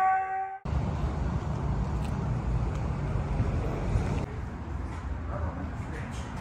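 Background music cuts off about half a second in, giving way to a steady rumble of road traffic with wind noise on the microphone.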